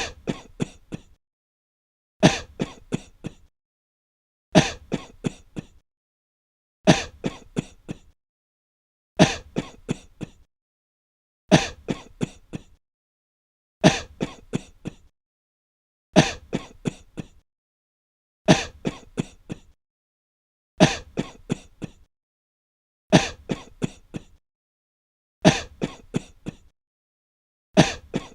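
A person coughing breathlessly in short fits: each fit is a quick run of four or five coughs, the first the loudest, and the same fit repeats evenly about every two and a quarter seconds with silence between.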